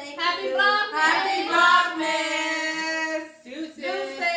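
Singing voice, a song line with long held notes.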